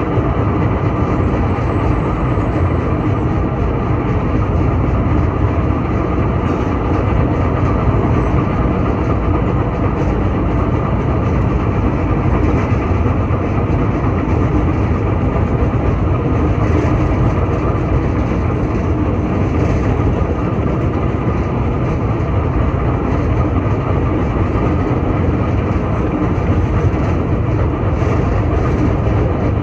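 A tram running along its track, heard from inside the passenger car: a loud, steady running noise of wheels on rails.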